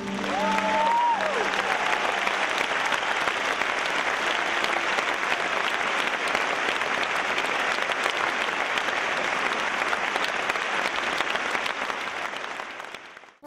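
Audience applauding steadily, with one short call rising and falling in pitch near the start. The applause fades out near the end.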